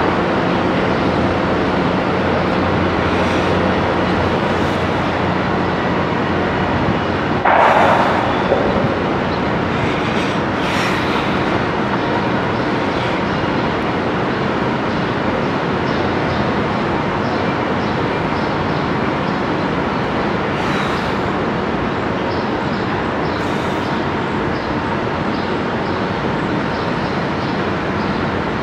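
Steady drone of engines and traffic across a construction site, with a brief louder burst about eight seconds in and a few short sharp knocks.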